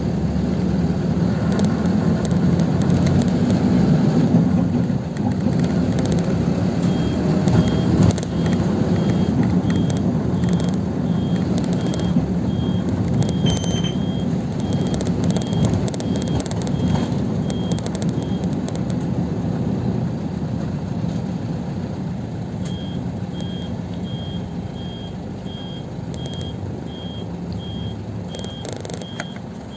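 City bus engine and road noise heard from inside the moving bus, loudest in the first half and easing off toward the end. A high electronic beep repeats evenly from about seven seconds in to about eighteen, then starts again near twenty-three seconds.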